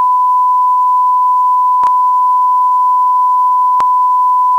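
A single loud, steady electronic beep tone, dubbed in over the picture. It holds one unchanging pitch throughout, and two faint clicks sound about two seconds apart within it.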